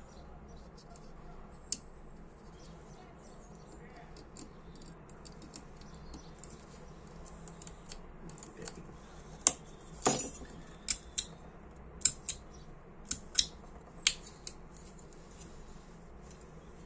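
Ronson Comet lighter's flint ignition being worked by hand: a string of sharp metallic clicks with one longer rasp of the flint wheel, bunched in the second half. The flint is not striking well, and the repairer judges it a poor stone.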